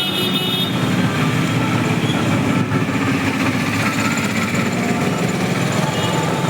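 Steady rumble of a vehicle in motion.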